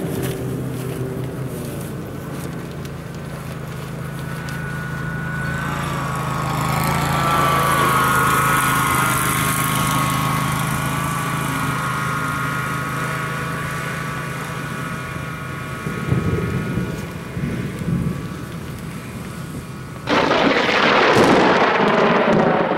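Thunderstorm: a steady low hum under a few rumbles of thunder about two-thirds of the way in, then a sudden loud hiss of heavy rain beginning near the end.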